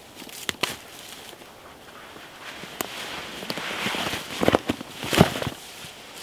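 Footsteps through dry beech leaf litter, with twigs snapping underfoot in a series of sharp cracks, the loudest about five seconds in, over rustling leaves.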